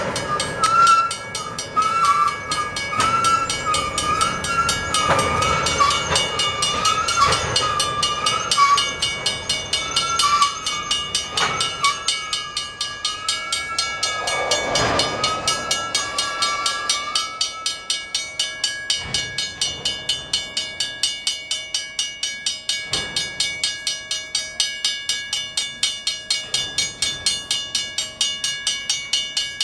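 Railroad tank cars rolling slowly through a grade crossing, the wheels giving a wavering squeal for about the first half and clanking now and then, while the crossing bell rings in an even, steady beat throughout.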